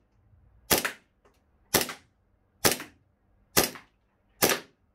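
Double Bell 2011 Hi-Capa green-gas blowback gel blaster pistol firing five single shots about a second apart, each a sharp crack. The shots clock around 300 to 320 feet per second.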